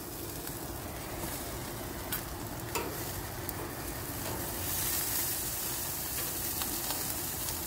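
Steady sizzling hiss from a gas grill with food still cooking on it, with a few light clicks of metal tongs against the grill.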